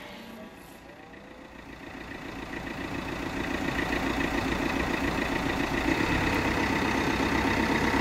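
A car engine running, growing louder over the first few seconds as the car draws up, then holding steady.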